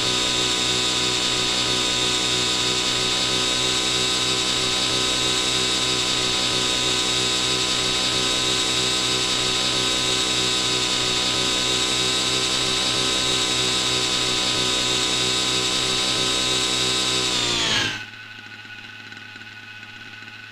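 Radio-controlled scale Huey model helicopter hovering close by: a steady high whine over the beat of the rotor. About 18 seconds in, the whine falls sharply in pitch and the sound cuts off as the model powers down, leaving only a faint low hum.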